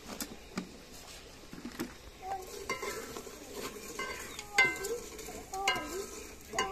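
A steel ladle stirring meat and spices in a metal cooking pot, with repeated sharp clinks and scrapes of metal on metal and a light sizzle.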